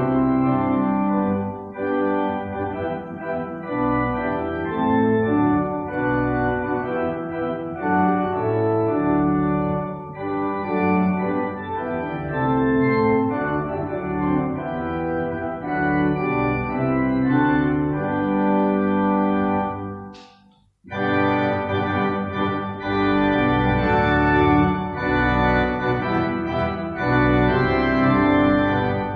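Organ playing a hymn tune in full held chords. It stops for a moment about two-thirds of the way through, then starts again.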